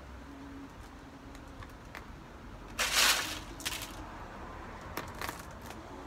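Small decorative pebbles clicking and a plastic bag rustling as they are handled for potting, with a louder rustling clatter about three seconds in and a few sharp clicks after it. A low wind rumble sits underneath.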